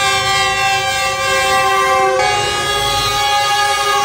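Train's air horn sounding one long blast of several notes at once, starting abruptly; its chord shifts slightly about two seconds in.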